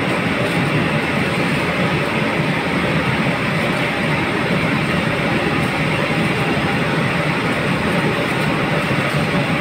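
Steady, loud machine roar of commercial kitchen equipment, even and unbroken.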